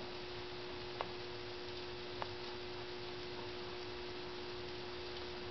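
Homemade model steam engine with a spray-can boiler running almost totally silently: only a faint steady hiss and a constant hum, with two faint ticks about a second apart.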